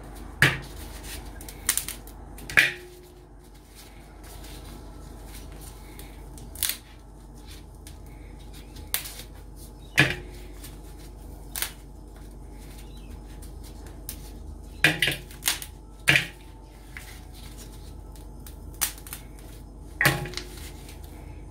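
A frozen mud crab being broken apart by hand: about a dozen sharp cracks and knocks, spaced irregularly, as the legs and claws are snapped off and dropped into a stainless steel bowl, some with a brief metallic ring.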